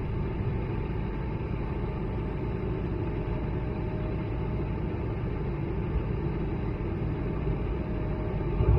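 Cabin noise of an Airbus A220-100 climbing after take-off: the steady drone of its Pratt & Whitney PW1500G geared turbofans and rushing airflow, with a thin steady whine running through it. A low thump near the end.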